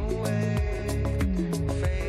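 Background dance music with a steady beat: a deep repeating bass line, quick regular percussion hits and sustained melody notes.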